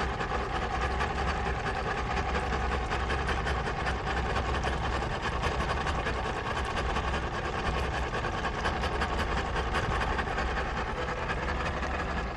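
An engine idling roughly but keeping running: a steady, continuous running sound with an uneven idle.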